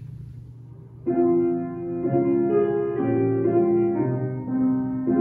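Low steady hum, then about a second in a piano starts playing slow, sustained chords: the introduction to a hymn sung by the group.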